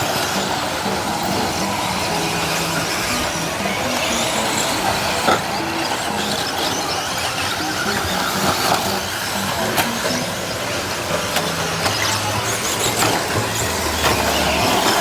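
Radio-controlled off-road buggies driving on a dirt track, with motors whining as they change speed and tyres churning the dirt, plus scattered clicks and knocks.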